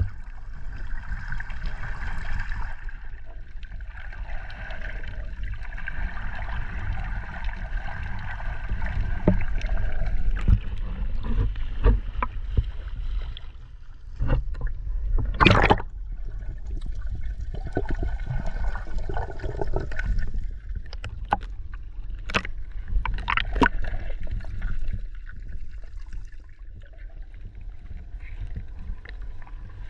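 Water sloshing and gurgling over a steady low rumble, with scattered sharp knocks; the loudest knock comes about halfway through.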